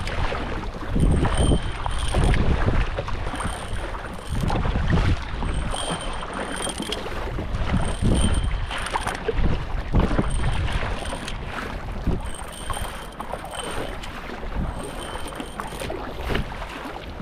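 Kayak paddle strokes dipping into the sea, with water sloshing in uneven surges every second or two, and wind buffeting the microphone.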